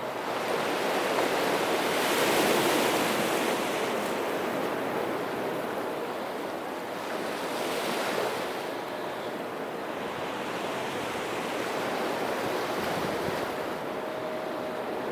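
Sea surf: waves washing onto the shore in slow surges, loudest about two seconds in and swelling again near eight seconds.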